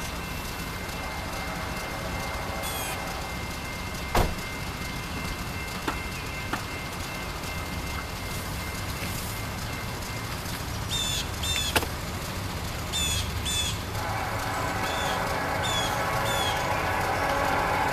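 Outdoor ambience with a steady low rumble. Small birds chirp repeatedly in the second half, and there are a couple of sharp clicks. A distant many-toned hum swells over the last few seconds.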